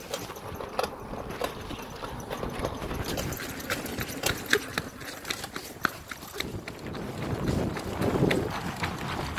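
Bicycle rattling and clicking as it rolls over a paving-block street, with irregular sharp clicks throughout. A low rumble swells about six and a half seconds in and eases off near the end.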